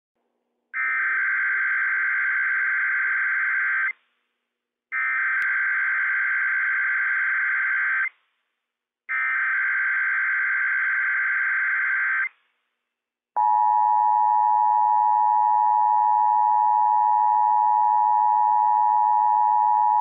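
Emergency Alert System Required Monthly Test: three bursts of digital SAME header data, each about three seconds long with a second's gap between them. After a short pause comes the steady two-tone EAS attention signal, which holds.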